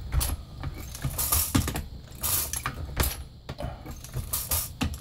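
9mm brass cartridge cases clinking and rattling against each other and against metal in irregular bursts, typical of a motorized case feeder on a progressive reloading press tumbling brass into its drop tube.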